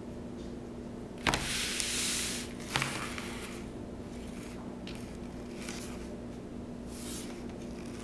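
Something being cut: a sharp click, then about a second of loud scraping hiss, then a second click, with fainter short strokes later on.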